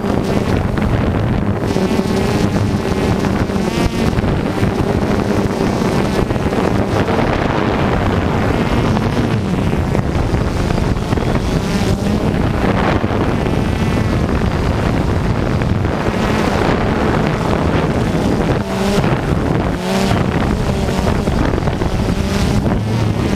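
Radio-controlled off-road cars racing, their motors buzzing and revving up and down continuously, with wind on the microphone.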